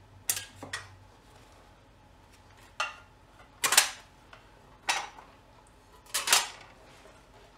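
Metal parts and tools clinking and tapping against a bare engine block as it is worked on by hand: about six short, sharp clinks, spaced irregularly a second or so apart.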